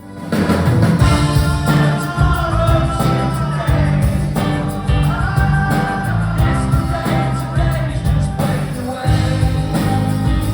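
Live band playing a pop-rock song through a concert PA, with a steady drum beat and bass under the melody.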